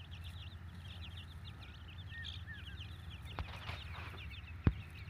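A brood of young chicks peeping constantly, many short high chirps overlapping, with a few lower calls among them, over a steady low hum. A single sharp click about four and a half seconds in.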